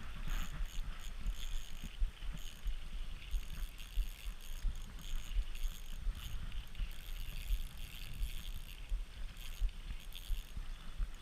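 Wind buffeting the microphone in uneven low gusts over a steady rush of river water, with short bursts of higher hiss and faint rattling.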